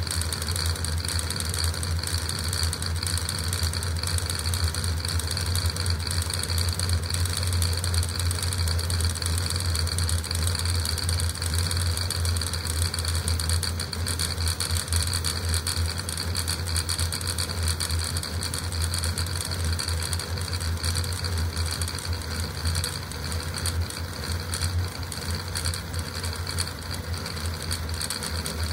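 Custom CoreXY 3D printer printing a Benchy at about 600 mm/s with 80k acceleration: the stepper motors and belts drive the toolhead in rapid back-and-forth moves. They make a steady, dense machine buzz with a strong low hum and a high whine.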